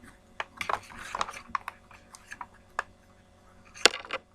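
Toy packaging being handled: crinkling and a scatter of small sharp clicks, with the loudest click just before the end.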